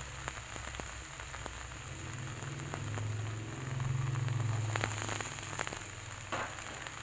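Crumbled oncom with chilli and shallots frying in oil in a nonstick pan, a steady soft sizzle. A few sharp clicks come about five seconds in, as a bowl of leunca berries is tipped into the pan, and a low hum swells for a couple of seconds in the middle.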